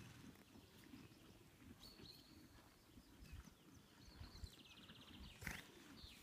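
Near silence outdoors with faint bird song: a few short, high whistled notes and a quick trill, and one sharp click about five and a half seconds in.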